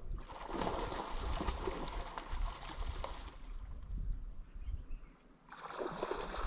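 Gusts of wind rustling the bankside trees and buffeting the microphone: a low rumble throughout, with two swells of hiss, the first lasting about three seconds and the second rising near the end.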